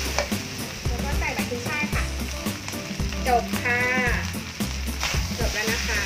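Fried rice with shrimp and squid sizzling in a wok as it is stir-fried, with a wooden spatula scraping and knocking against the pan.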